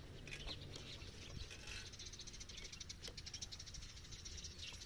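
Faint outdoor ambience with a steady low hum, and a faint, fast high-pitched ticking from about two seconds in.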